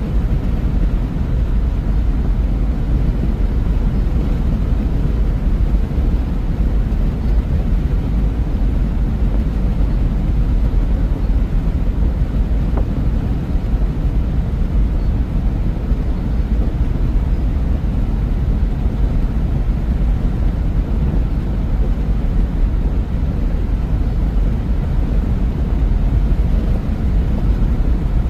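Steady low rumble of engine and tyre noise from a vehicle driving at highway speed, heard from inside the cab.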